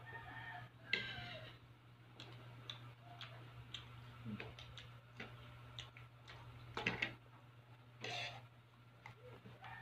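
Eating sounds: scattered small clicks and taps of a metal spoon against plastic food containers and a bowl, with mouth and chewing noises, a few taps louder than the rest, over a steady low hum.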